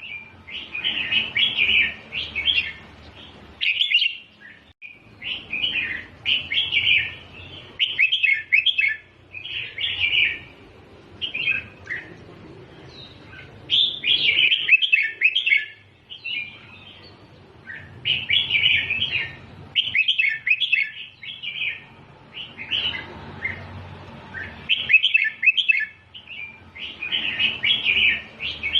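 Red-whiskered bulbul singing: short bubbly, chirping phrases repeated over and over with brief pauses between them, in the doubled 'เบิ้ล' song style.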